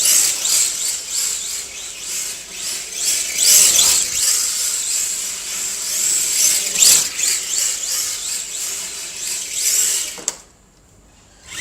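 Electric RC drift car's motor whining at a constant high pitch while being revved up and down again and again, cutting out about ten seconds in.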